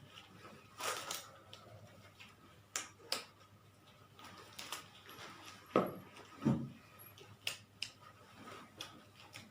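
Scattered light clicks and knocks, with two duller thumps about six seconds in.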